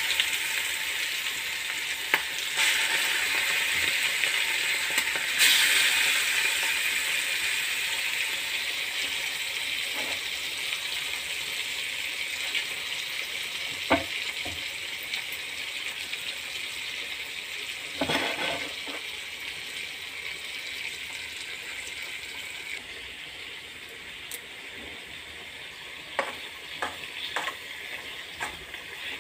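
Goat tripe (boti) in masala frying in a kadai. A loud sizzle starts at once and slowly dies down over the half-minute. Sharp clicks of a spoon against the pan come now and then, with several close together near the end as it is stirred.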